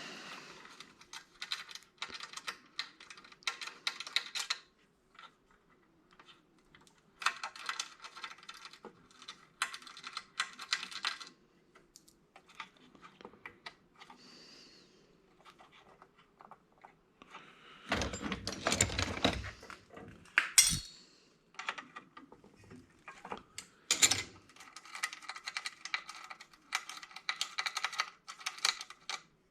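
Small metal parts and panels of a gas pump console clinking and rattling in bursts as it is taken apart by hand, with a louder clatter about two-thirds of the way through and a couple of sharp knocks after it.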